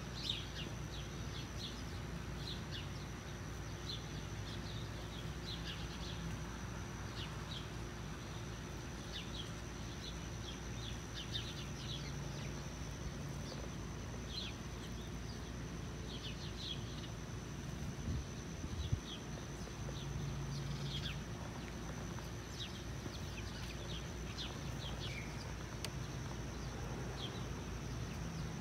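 Outdoor ambience: small birds chirping on and off over a steady high insect buzz and a low background rumble, with a few soft knocks.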